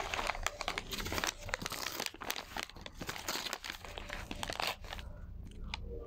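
Food wrapper crinkling and tearing as it is handled and opened by hand; the crackling stops about five seconds in, leaving a few faint clicks.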